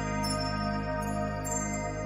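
Calm background music: sustained chords with a light chiming accent struck twice.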